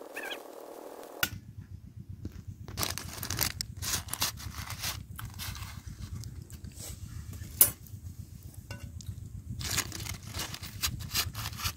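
Newspaper lining a clay bowl crinkling and rustling as grilled chicken tikka pieces are dropped and pushed into it: a run of irregular crackles and ticks, with one sharper click a little past halfway. Low wind rumble on the microphone sets in about a second in.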